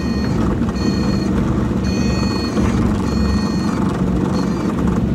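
Diamond DA40 stall warning horn sounding in four short pulses about a second apart during the landing flare, a sign the wing is near the stall just before touchdown, over the steady drone of the engine and propeller inside the cabin.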